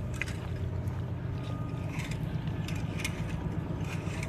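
Steady low rumble like an idling motor, with a few faint clicks.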